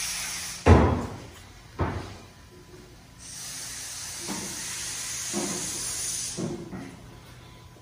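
Thumps about once a second, like footsteps on a concrete floor, the loudest about a second in. A steady hiss like escaping compressed air runs for about three seconds in the middle.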